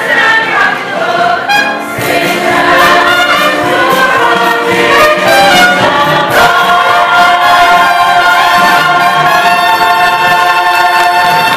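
Full cast chorus singing the final bars of a musical-theatre number with a pit orchestra and trumpets, building to one long held final chord that stops right at the end.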